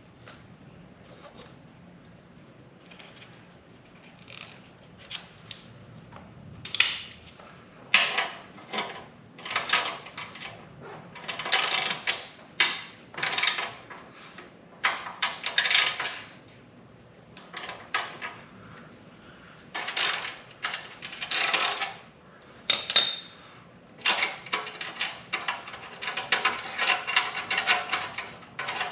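Metal hand tools and motorcycle exhaust parts clinking and clattering in irregular bursts, with quieter gaps between. The clatter gets busier near the end.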